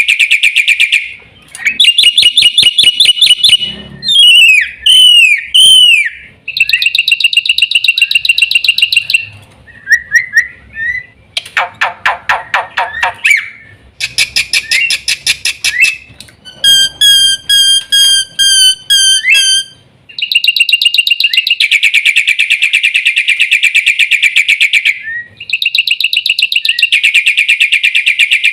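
Black-winged myna (jalak putih) singing loudly. Its song runs in long fast trills of rapidly repeated notes, broken by swooping whistled glides and a run of short, evenly spaced whistles, with brief pauses between phrases.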